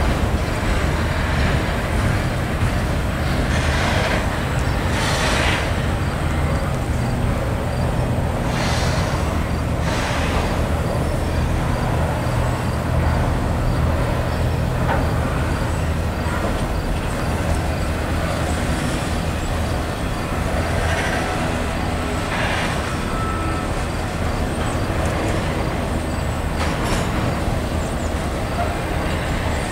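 Double-stack container train rolling past: a steady rumble of freight cars on the rails, with a few short sharper noises from the cars every several seconds.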